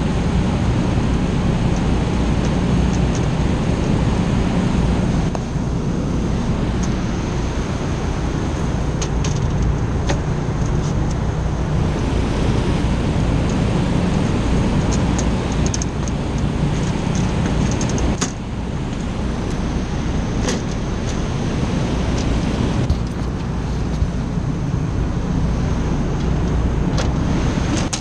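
Steady rooftop HVAC fan noise: a constant whooshing drone with a low hum and a faint high motor whine, with a few sharp clicks and taps.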